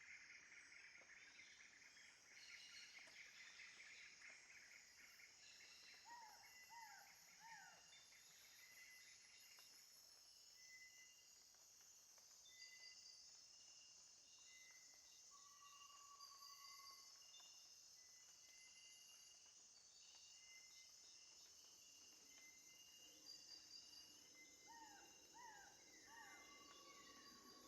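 Faint forest ambience: a steady high insect drone with scattered short bird whistles. A bird gives a run of three quick notes about six seconds in, and again near the end.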